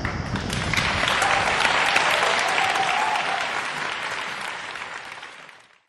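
Audience applauding at the end of a live song, the clapping fading out over the last couple of seconds.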